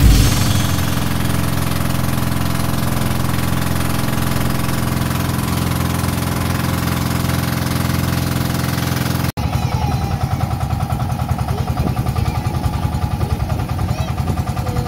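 Motor boat's engine running steadily. About nine seconds in, the sound cuts and resumes as a fast, even throbbing.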